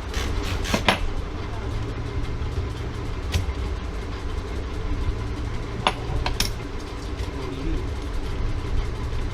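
A few sharp metallic clicks from the mechanism of a manual typewriter under repair: three in quick succession near the start, one a little after three seconds, and a few more around six seconds, over a steady low rumble.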